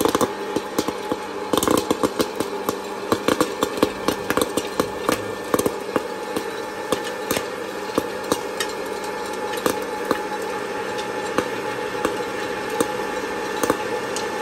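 Presto PopLite hot-air popcorn popper running, its fan motor giving a steady hum and rush of air. Sharp clicks of kernels popping and puffed corn dropping into the bowl come thick at first and grow sparse over the last several seconds as the batch runs out.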